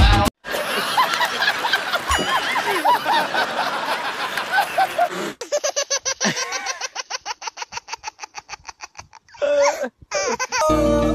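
People laughing hard. A burst of mixed laughter turns into a long run of rapid, even ha-ha pulses, about seven a second, that fades away.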